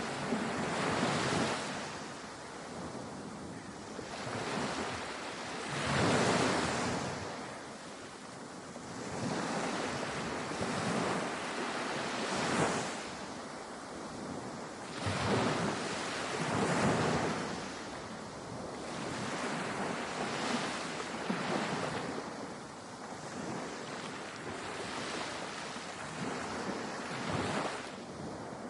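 Ocean surf and wind: big waves breaking in swells that rise and fall every few seconds, with wind buffeting the microphone.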